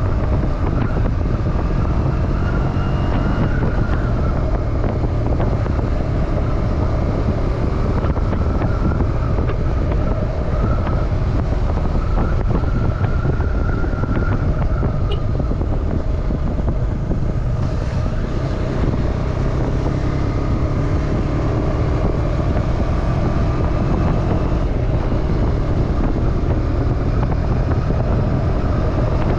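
KTM 250 Duke's single-cylinder engine and exhaust running steadily while riding, its pitch drifting gently up and down with the throttle, with wind buffeting the helmet-mounted microphone. The engine eases off briefly about two-thirds of the way through, then picks up again.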